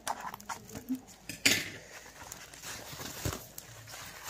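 Paper rustling and crinkling as shredded-paper packing and a newspaper-wrapped plant are handled in a cardboard box, with irregular small crackles and one sharper rustle about a second and a half in.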